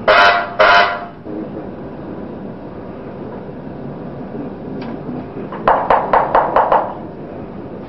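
Two short, loud blasts of a mine shaft signal buzzer as the cage of workers is sent off, then near the end a quick run of about seven sharp knocks, about five a second.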